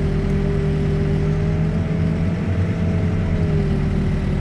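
Backhoe diesel engine running steadily under digging, with a whine over it whose pitch rises slightly about two seconds in and eases back near the end.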